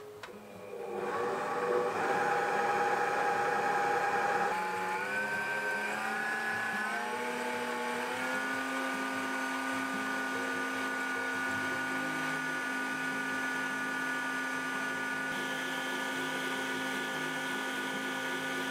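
Mito MX 100 stand mixer's motor whirring as its wire whisk beats eggs and sugar in a steel bowl. It starts about a second in, its whine rises in steps for a few seconds, then it runs steady at top speed, speed 12.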